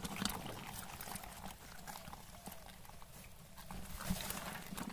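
A pot full of live climbing perch wriggling against each other, with irregular small wet clicks and slaps as the spiny, scaly fish shift in the pile, over a low rumble.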